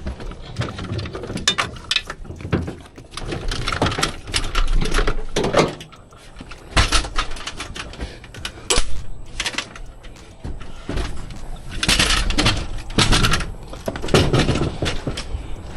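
Irregular clatter and knocks of boxed HVAC parts being picked up and handled, with louder bunches of knocks near the middle and again towards the end.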